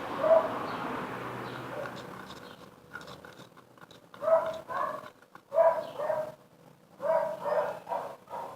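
Small dog barking in short runs of two or three barks, starting about four seconds in and repeating.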